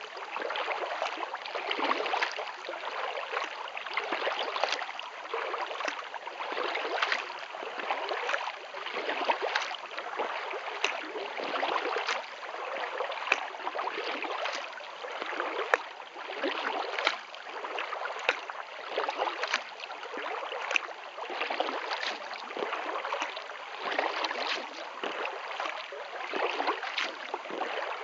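Kayak paddle strokes in water: the blades dip, swish and drip in a steady rhythm of about one stroke every 1.2 seconds, with water trickling along the hull.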